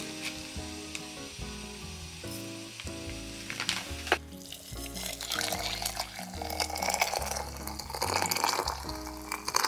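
Hot water poured in a stream into a ceramic teapot, a splashing pour that builds from about halfway through. Before it come a few light ticks and one sharp click as dried lavender is tipped in, with soft background music under everything.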